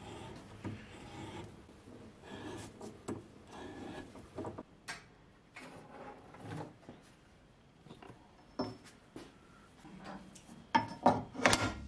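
Hand tap in a tap wrench cutting a thread into a metal bearing insert: faint, uneven scraping and rubbing with small clicks as the tap is turned. Near the end come a few louder clicks and knocks as the metal insert is handled.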